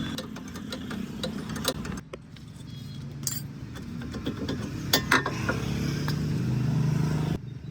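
Metal clinks and clicks from tools and parts being handled, over a low vehicle engine hum that slowly grows louder; two sharp clicks stand out about five seconds in.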